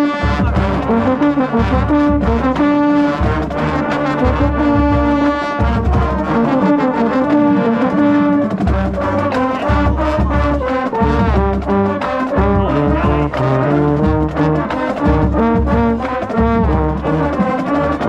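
A marching band's brass section playing a trombone fanfare loudly, with a baritone horn close to the microphone.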